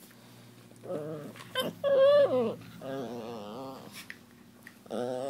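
Chihuahua vocalizing while play-wrestling: a string of about five wavering, pitched whines and grumbles, the loudest about two seconds in.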